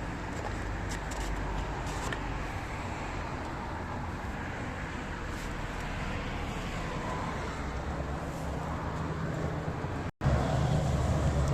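Volkswagen Touran diesel car being driven: steady engine and road noise. It cuts out for a moment about ten seconds in, then comes back louder with a steady low hum.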